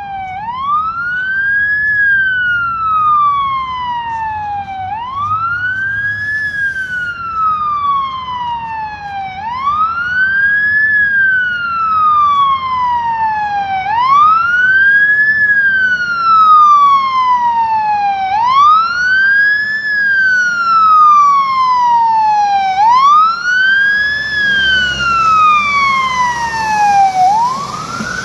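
Fire engine siren wailing in a slow, steady cycle, each wail rising quickly and then falling more slowly, repeating about every four and a half seconds. Near the end, the truck's engine rumble and the hiss of its tyres on the wet road grow louder as it passes close by.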